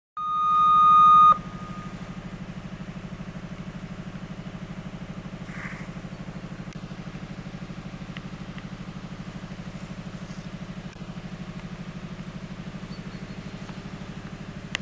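A railway station's train-approach warning signal: a clear beep that swells for about a second and is the loudest sound, then a steady, fluttering low buzz that goes on throughout. It signals that a train is approaching the station.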